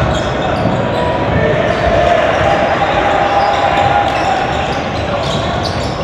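Basketball dribbling on a hardwood court, with voices and game noise filling a large gym.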